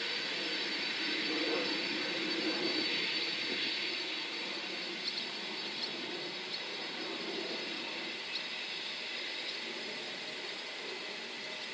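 Boeing 747-400 jet engines running steadily with a high whine over a rushing noise as the airliner rolls along the runway, swelling slightly a couple of seconds in and then easing off a little.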